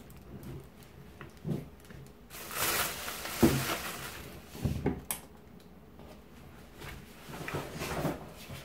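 A thin plastic carrier bag rustling as it is handled, with a few knocks on a desk as things are set down; the loudest is a thump about three and a half seconds in.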